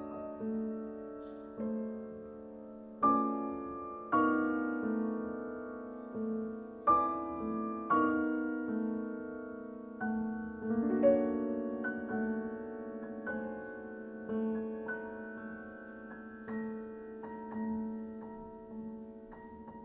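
Concert grand piano played solo: slow chords struck one after another, each ringing and fading, over a note repeated steadily in the middle register.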